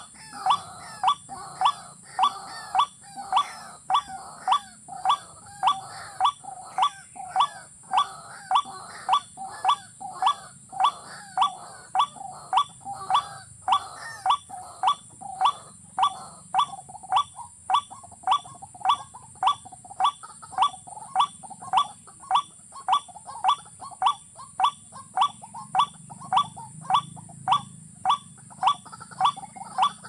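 White-breasted waterhen calling: one short, clipped note repeated very evenly, about three every two seconds, without a break.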